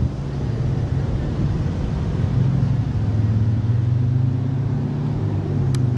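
A car engine running steadily at low speed, a low hum that steps up slightly a couple of seconds in. A single sharp click near the end.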